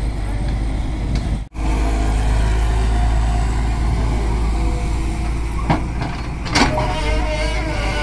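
Tata Hitachi EX200LC crawler excavator's diesel engine running steadily as it digs and swings, with two sharp knocks near the end. The sound cuts out for an instant about one and a half seconds in.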